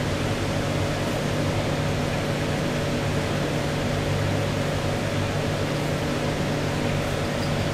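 Ambient relaxation music played for a guided listening exercise: a steady, even wash of sound with a low held hum under it, which a listener afterwards likened to night sounds of forest animals.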